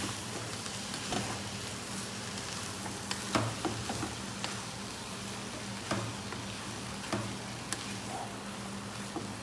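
Shredded chicken, chopped tomatoes and green pepper sizzling in a hot, oiled pot while being stirred with a plastic spoon, with a few short scrapes and taps of the spoon against the pot.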